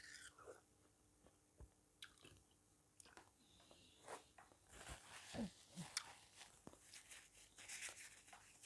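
Faint chewing and biting of watermelon, with scattered short crunches and mouth smacks.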